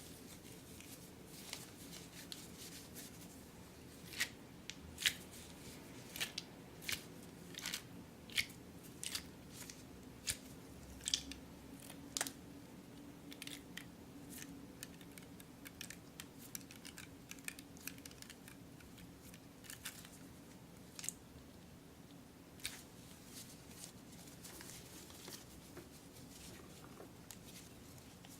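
A long run of irregular sharp clicks and snips, about one a second and thickest in the first half, like small craft handling such as scissors snipping.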